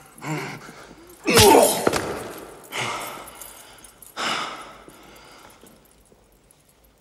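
A boy crying out and gasping in pain while being punished. The loudest cry comes suddenly about a second in, with a sharp hit, and two more outbursts follow about a second and a half apart.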